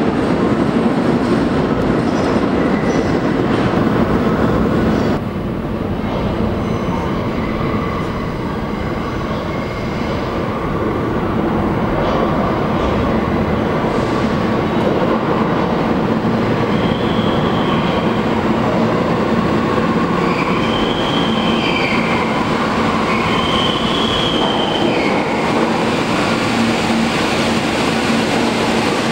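New York City subway trains running through an underground station: a steady rumble that drops suddenly about five seconds in. An N train then approaches along the track, its wheels squealing in several short bursts in the second half.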